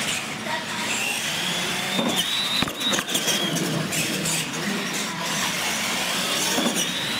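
Electric R/C monster trucks racing on a concrete floor: a high motor whine that rises and falls in pitch as they speed up and slow down, with a couple of sharp knocks about two to three seconds in.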